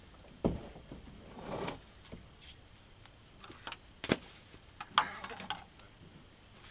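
Scattered thumps and knocks of gear being unloaded from a pickup truck bed: life vests dropped onto the concrete ramp and canoe paddles knocking against the truck, with the sharpest knocks about four and five seconds in.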